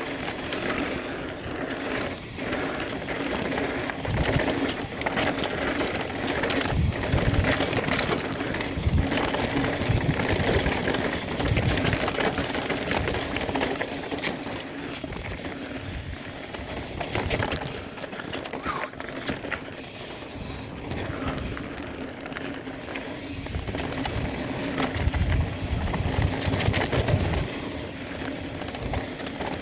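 Mountain bike descending a rough trail at race speed: a continuous rush of tyres over dirt and rock with the bike rattling over the terrain, and heavier low thumps now and then.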